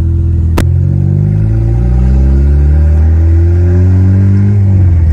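Turbocharged Acura RSX's K20 four-cylinder engine pulling on the road, its pitch rising steadily, then the revs dropping near the end. A sharp click about half a second in.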